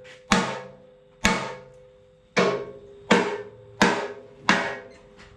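Hammer striking a freshly welded steel frame crossmember six times, about a second apart, each blow ringing on; the weld is being tested to see whether it cracks.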